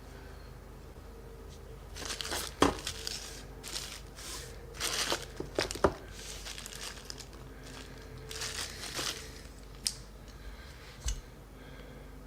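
Component packaging being opened by hand: cardboard and plastic wrapping rustling and crinkling in several short bouts, with a few sharp clicks and knocks between them.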